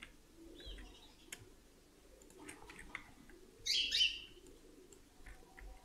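A few short, high bird chirps, the loudest two close together a little before four seconds in, with faint clicks and low room noise between them.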